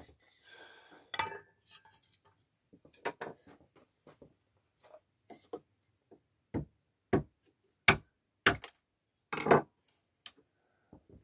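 Freshly added firewood crackling and popping inside a small wood-burning stove: irregular sharp pops every half second to a second, after a short rustle at the start.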